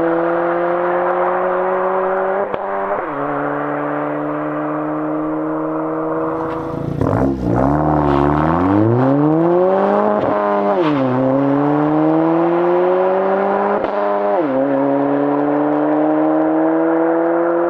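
An 11th-gen Honda Civic Si / Acura Integra 1.5-litre turbo four-cylinder running through an AWE catback exhaust while driven under acceleration. Its note climbs steadily in pitch and drops suddenly at gear changes about 3, 11 and 14 seconds in, with a quick rev rise around the middle.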